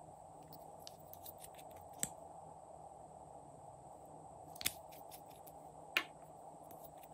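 Small plastic clicks and taps from liquid-lipstick tubes being handled and uncapped: a scatter of light ticks, then three sharper clicks about 2, 4.7 and 6 seconds in, over a faint steady hum.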